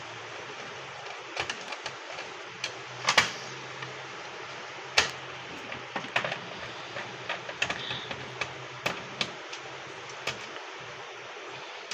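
Irregular light clicks and knocks of the label printer's plastic housing and small parts being handled during disassembly, with two louder knocks about three and five seconds in, over a steady low hum.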